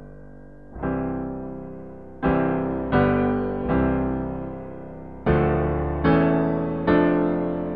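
Slow, tender piano music: sustained chords struck about once a second or so, each ringing out and fading before the next.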